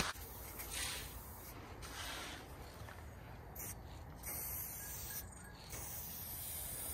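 Aerosol spray paint can, fitted with a blue cap, hissing on and off as a thin yellow outline is sprayed.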